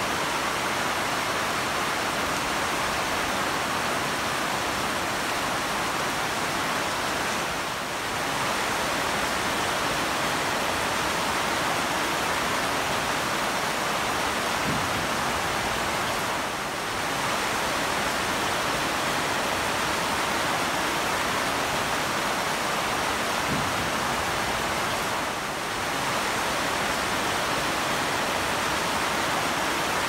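Very heavy rain pouring steadily onto banana plants and the trees around them, an even, dense hiss of water striking broad leaves.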